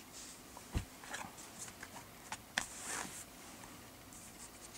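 A tarot deck handled on a blanket: faint scattered taps and rustles, with a soft thump under a second in and a longer rustle near the middle.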